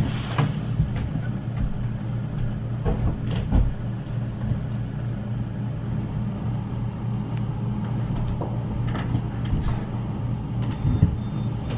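An engine running steadily with a low drone, with scattered light knocks and clicks over it.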